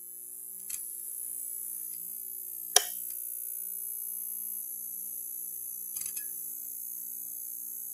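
Neon sign buzzing: a steady electrical hum with a high hiss, with one sharp click about three seconds in and a few fainter clicks. The sound cuts off suddenly at the end.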